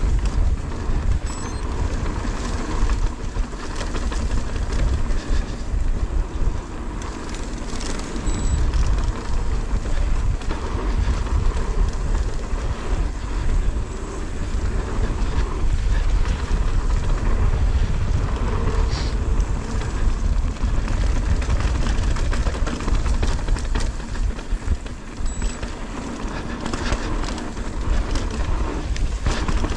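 Wind buffeting a GoPro action camera's microphone while a full-suspension mountain bike rides a dirt trail, with a steady rumble of tyres on dirt and scattered clicks and rattles from the bike over bumps.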